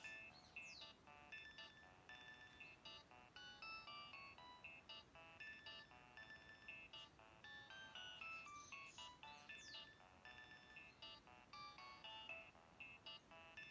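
Nokia 2115 mobile phone ringtone playing quietly: a quick electronic melody of short, bright beeping notes, with falling swoops about half a second and nine seconds in.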